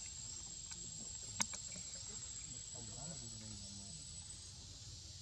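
Steady high-pitched drone of insects, with a single sharp click about one and a half seconds in.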